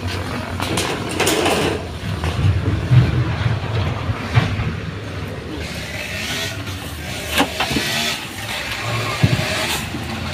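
Knocks and rustling as the wooden chicken coop, its corrugated metal sheet lid and a cloth sack are handled, with a few sharp knocks. Under it runs a steady low rumble.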